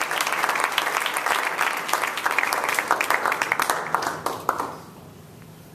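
Audience applauding, many hands clapping at once; the applause fades out about four and a half seconds in.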